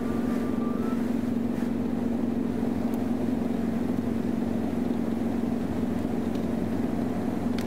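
Steady low drone of a car driving at highway speed, heard from inside the cabin: engine and road noise running evenly.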